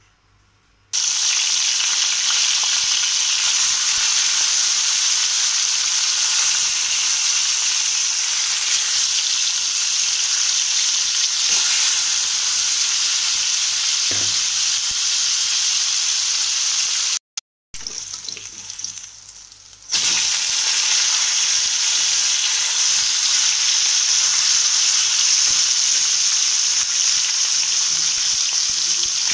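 Rohu fish pieces sizzling loudly as they fry in hot oil in a wok. The hiss starts suddenly about a second in, drops out briefly a little past halfway and weakens, then comes back at full strength.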